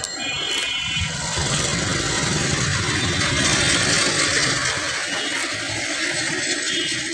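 Street traffic noise: a vehicle engine running under a steady rush of road noise, swelling slightly around the middle.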